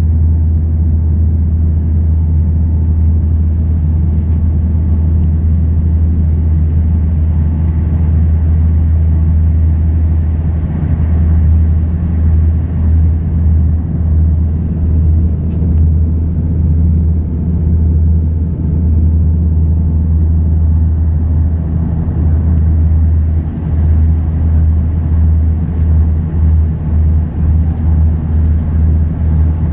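Cabin noise of a Bombardier Dash 8 Q300's turboprop engines and propellers on final approach: a loud, steady low drone. It wavers from about a third of the way in and pulses unevenly over the last several seconds, as the aircraft comes down over the runway just before touchdown.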